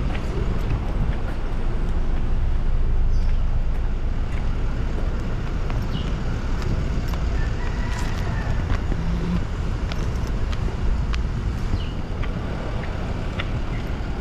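City street traffic noise: a steady low rumble of cars and trucks, with a few scattered light clicks.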